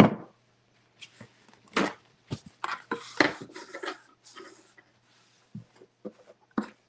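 Kitchen knife and bamboo cutting board being handled, with a paper towel wiped across the board: scattered knocks and scrapes, and a stretch of rubbing in the middle.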